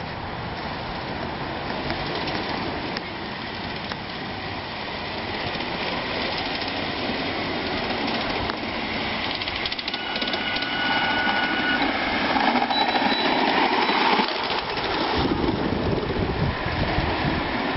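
Miniature railway train running along the track with its passenger cars, the wheels rumbling and clattering on the rails, growing louder as it comes closer. About ten seconds in, a high steady whistle sounds for about two seconds, and a shorter, higher whistle follows soon after.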